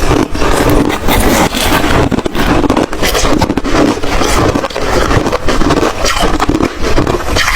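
Close-miked chewing of white crunchy ice: loud, unbroken crunching with several sharp cracks a second as the ice breaks between the teeth.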